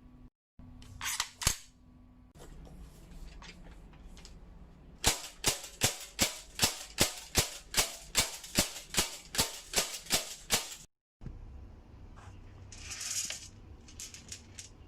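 ARES WA2000 airsoft rifle, converted to gas semi-automatic, fired in a rapid string of about eighteen shots, roughly three a second, each a sharp crack. A few handling clicks come before the string, and a brief hiss follows near the end.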